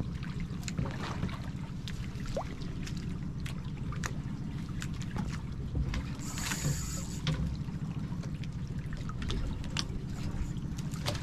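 A fishing boat at sea: a steady low engine rumble with water splashing and scattered light clicks. A brief high hiss comes about six seconds in.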